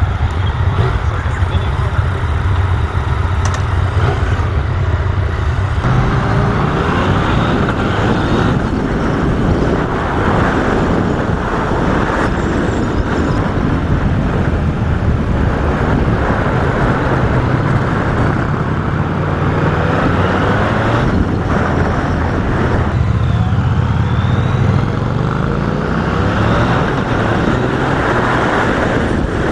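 Yamaha XSR900's inline-three engine idling steadily, then pulling away about six seconds in and running at road speed with a rush of wind. Revs rise and fall in several glides through the gears near the end.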